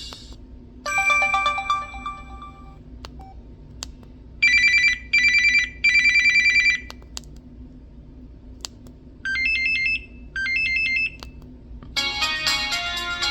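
Preloaded ringtones and alert tones of a Samsung Convoy 4 phone played one after another: a short chime about a second in, three short electronic rings in a row around the middle, two short phrases of rising beeps later, and a fuller musical ringtone starting near the end.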